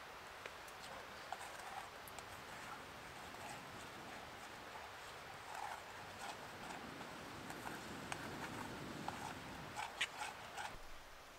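Faint steady hiss with scattered light clicks and taps from cooking over a small campfire, with a quick cluster of clicks about ten seconds in.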